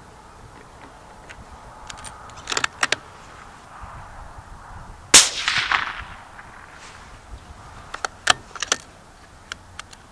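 A single suppressed rifle shot from a bolt-action .204 Ruger, about five seconds in, with a sharp report and a short fading echo. A few sharp clicks come before and after it.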